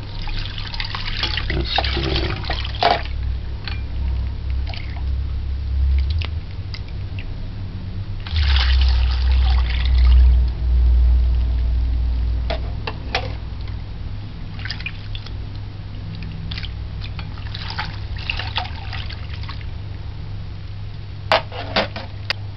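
Steeped sorrel (hibiscus) drink poured from a cup through a plastic mesh strainer into a glass bowl, splashing and trickling over the soaked calyces in three separate pours. There are a few sharp clicks near the end, and a steady low hum runs underneath.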